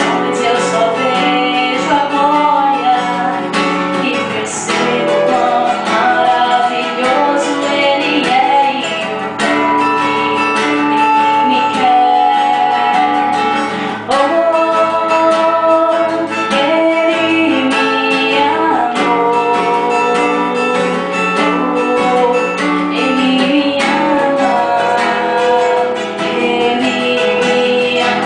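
Worship song: strummed acoustic guitar with a singing voice over it.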